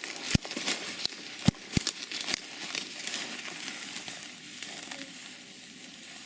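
Rustling and crackling of dry grass and brush being pushed through, with a few sharp snaps in the first two and a half seconds.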